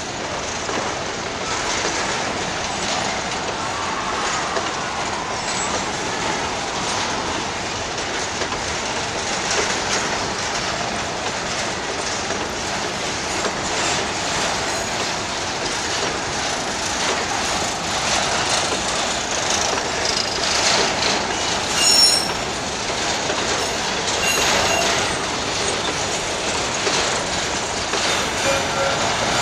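Freight-train boxcars and hopper cars rolling past: a steady rolling noise with the clatter of wheels over the rails. Brief high wheel squeals cut in now and then, the loudest about 22 seconds in.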